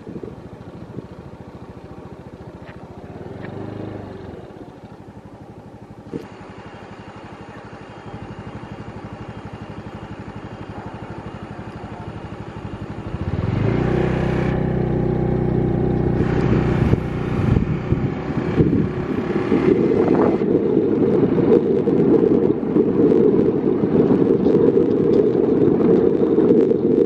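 Riding along a road: a vehicle engine grows louder about halfway through, then heavy wind buffets the microphone.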